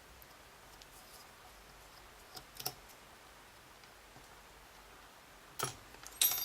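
Small metal lock parts being handled while a padlock is taken apart: a couple of faint clicks about two and a half seconds in, then short, louder clicks and clatter near the end.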